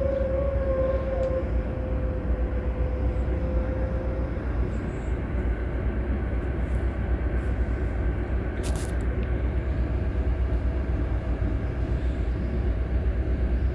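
Scania K360 bus diesel engine running steadily with a low, even rumble. A whining tone fades out in the first few seconds, and there is a short high click about nine seconds in.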